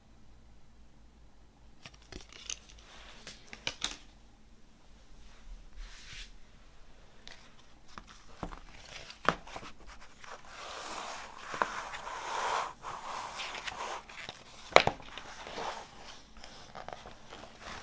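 A folded glossy paper poster being unfolded and handled: a few light clicks, then rustling and crinkling of the paper, with one sharp snap about three-quarters of the way through.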